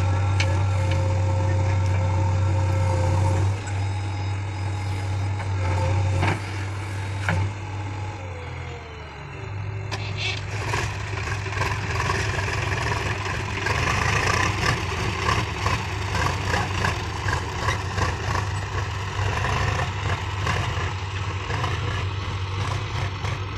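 Diesel engine of heavy machinery running steadily. About eight seconds in its pitch drops, and it then goes on with a rougher, noisier sound.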